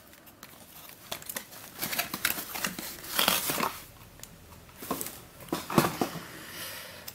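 Cardboard puzzle box being opened and handled: scattered rustles, scrapes and crinkles of the card, with a few sharper clicks and knocks.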